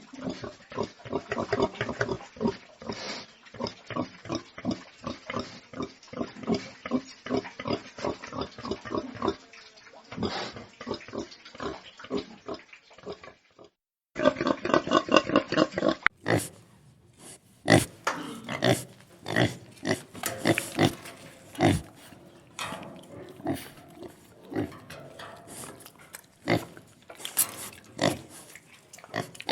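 Domestic pigs grunting in a rapid, continuous run of short calls. The calls break off briefly about fourteen seconds in, then go on in a different recording.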